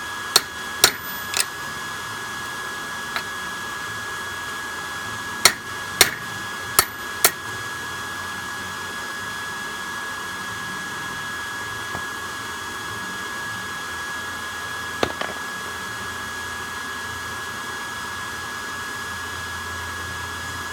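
Steady whirring whine of an air blower feeding a homemade forge. Over it come a handful of sharp metal clanks on a railroad-track anvil: three quick ones at the start, one about three seconds in, four more from five to seven seconds in, and a last one about fifteen seconds in.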